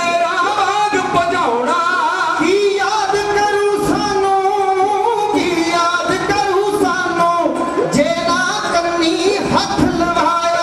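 Dhadi singing: a man's voice singing a Punjabi var, with a bowed sarangi following the melody and the hand-struck beats of small hourglass dhadd drums.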